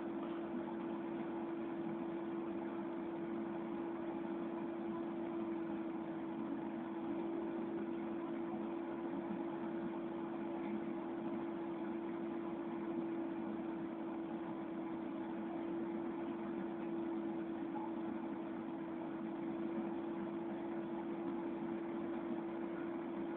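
Steady mechanical hum with a single constant tone.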